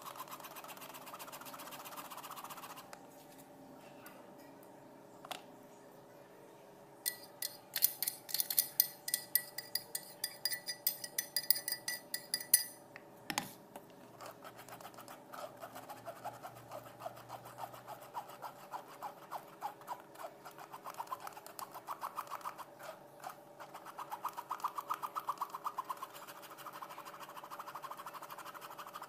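A spoon scraping and stirring blended fruit pulp in a sieve, pressing the juice through into the jug below. Rapid scraping strokes, loudest from about a quarter to halfway through, with a single knock near the middle, then softer, even strokes.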